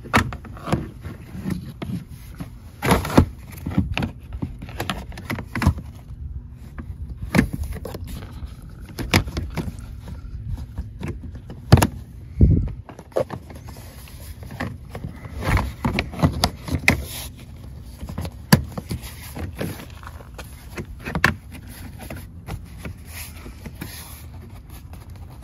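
Plastic interior trim panel at a car's door sill being fitted and snapped into its clips: irregular clicks, knocks and scrapes over a low rumble.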